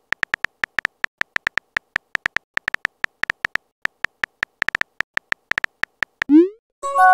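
Texting-app keyboard sound effects: a rapid, uneven string of short high beeps, one per letter typed, about seven a second. Near the end they stop and a quick rising bloop is heard as the message is sent, followed by a short chime.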